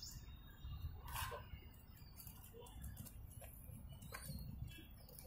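Faint outdoor background: a low steady rumble with a few soft clicks and rustles, the clearest about a second in.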